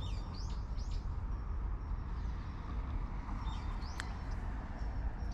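Steady low outdoor rumble with a few short, high, falling bird chirps, twice in small clusters, and one sharp click about four seconds in.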